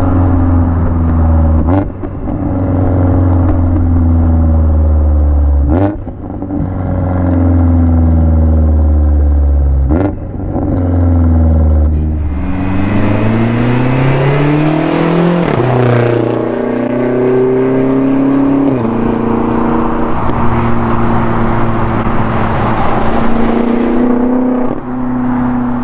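Twin-turbo S63 V8 of a heavily tuned 2019 BMW X6M with Eisenmann exhaust and Dinan mufflers, heard from outside at the rear while driving hard. There is a sharp crack at each of four quick upshifts in the first twelve seconds. Then the pitch climbs and settles into a steady exhaust drone under wind and road rush.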